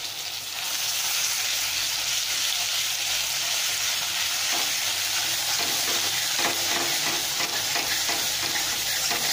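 Gooseberry paste sizzling in hot sesame oil in a kadai, a steady hiss that swells about half a second in, while a metal spoon stirs and scrapes it through the pan.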